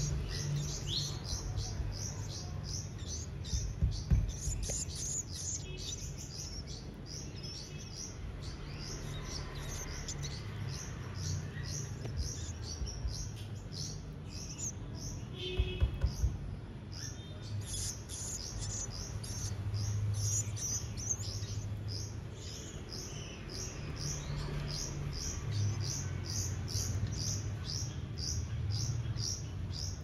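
Hand-fed nestling songbirds begging, a steady run of short, high cheeps repeated about two to three times a second. A few knocks sound about four seconds in and again around the middle.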